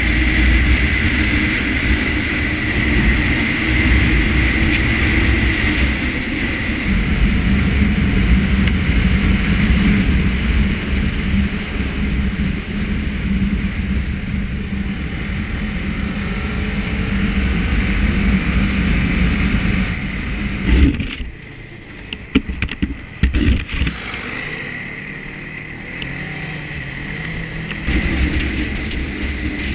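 Snowmobile engine and track running under way at trail speed, with a steady high whine over the engine note. About two-thirds of the way through, the engine drops back sharply for a few seconds with a few knocks, then picks up again near the end.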